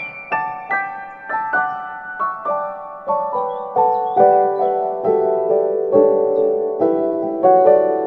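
Background piano music: a gentle melody of single notes, roughly two a second, descending in pitch through the middle.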